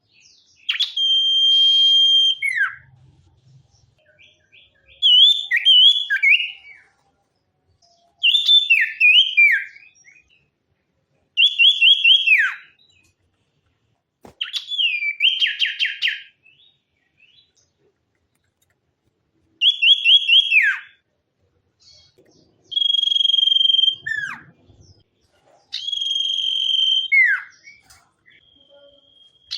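A sirtu songbird singing loud whistled phrases about every three seconds, each a clear high note or a quick series of repeated notes, many ending in a sharp downward slur, with short silent gaps between.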